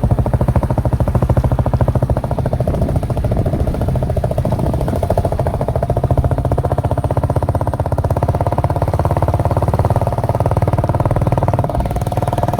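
Royal Enfield Bullet's single-cylinder engine running steadily, a rapid, even beat of firing pulses with no revving.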